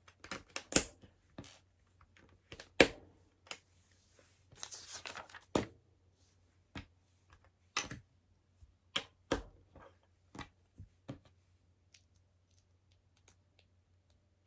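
Plastic LEGO pieces clicking and clattering as they are handled and pressed together, with a brief rustle of plastic about four to five seconds in; the clicks thin out to faint ticks near the end.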